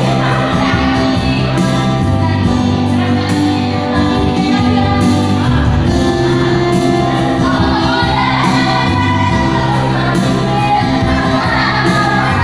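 Church worship band rehearsing a song: singing voices over live instruments, with steady bass notes and a cymbal struck every couple of seconds.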